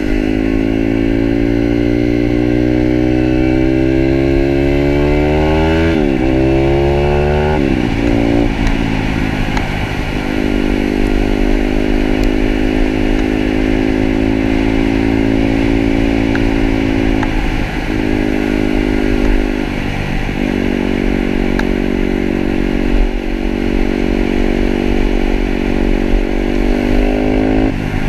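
Pitster Pro 160cc pit bike's single-cylinder four-stroke engine under way: revving up through the gears with two quick upshifts a few seconds in, then holding a steady cruise with brief lifts of the throttle, and a final rise in revs and drop near the end.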